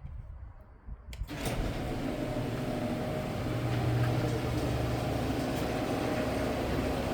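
Chamberlain 9902 half-horsepower screw-drive garage door opener: a click about a second in, then the motor starts and runs steadily, driving the door along the screw rail. The run is very quiet aside from some rattling in the screw rail.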